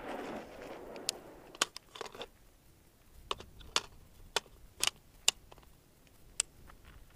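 The report of a 5.56 AR-15 rifle shot echoing back and fading through the first second. After that comes a scattered series of about a dozen small, sharp clicks.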